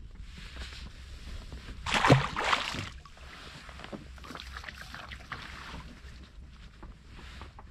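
Handling noise as a caught speckled trout is stowed aboard a fishing kayak: a loud scuffle about two seconds in, then lighter knocks and rustles.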